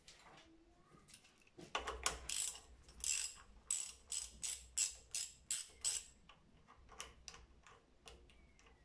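Hand socket ratchet clicking as the crown wheel bolts are run down: about two seconds in, a steady run of sharp clicks at about three a second, thinning to a few scattered clicks near the end.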